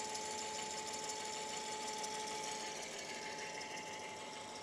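Electric motor driving a boat's sail drive unit, running steadily with a constant whine. The sail drive's gearbox has no oil in it yet, which leaves it making some noise.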